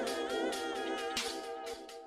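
Music with a steady beat: a melodic line that bends in pitch over regular percussion strokes.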